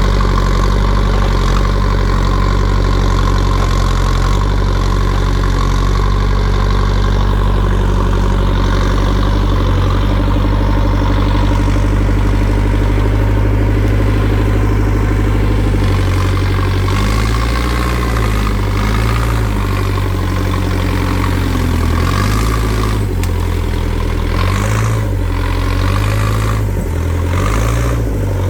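Diesel engine of a JCB 3CX backhoe loader running steadily, then from about halfway its speed rising and falling again and again as the machine works.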